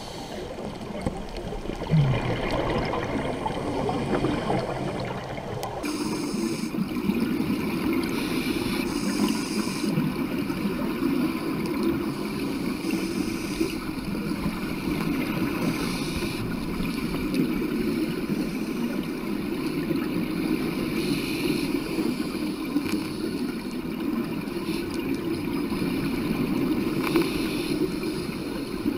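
Steady underwater water noise picked up by a diving camera: a low rushing and gurgling that changes sharply about six seconds in.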